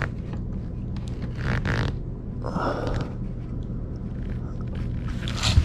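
A few short scrapes and shuffles as a leveling shim is pushed under a dishwasher's rear foot while the machine is lifted and nudged, the loudest about one and a half and two and a half seconds in.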